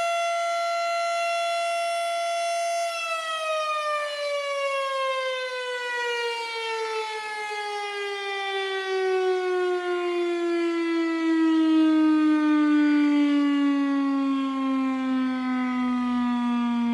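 Federal Signal STH-10A rotating electromechanical fire siren holding a steady high tone for about three seconds, then shut off and winding down in one long falling glide as the rotor slows. Its loudness wavers during the wind-down.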